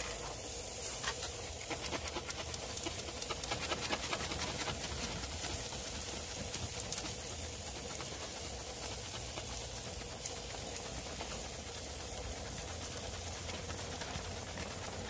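Ribs and sausages sizzling over charcoal on a steel park grill: a steady hiss with many small crackles, thickest in the first few seconds.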